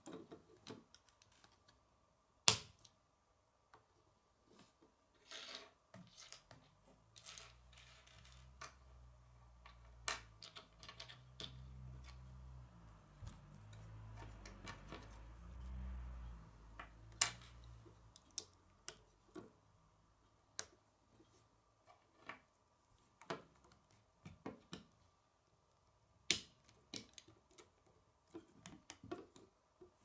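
Small plastic Lego bricks clicking and snapping together as they are handled, a scatter of sharp clicks and taps, the loudest about two and a half seconds in. A low rumble swells in the middle and fades away.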